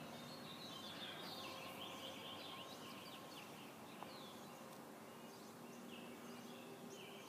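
Faint outdoor ambience: small birds chirping repeatedly over a low steady hiss.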